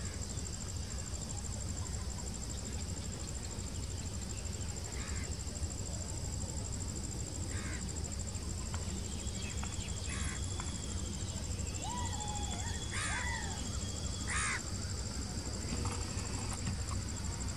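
Insects chirring in a steady high whine, with a handful of short bird calls, a few of them close together about two thirds of the way in. A steady low rumble sits underneath.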